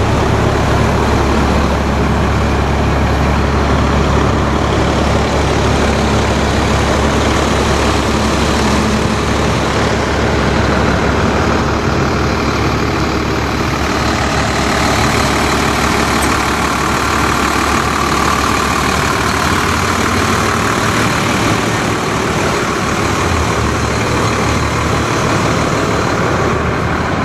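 Diesel engines of fire trucks moving slowly past at close range: a steady, heavy, low engine note, with the sound broadening into more engine and road noise about halfway through as the next truck comes by.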